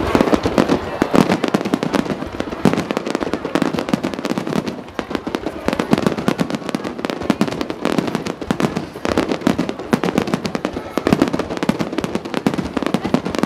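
Aerial fireworks bursting in rapid succession: a dense, continuous barrage of bangs and crackling, easing briefly about five seconds in.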